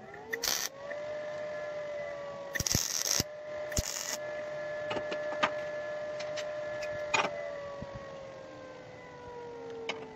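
Electric angle grinder running free: its whine spins up quickly just after the start, holds steady, then slowly falls in pitch as it coasts down near the end. A few short loud noisy bursts come in the first few seconds.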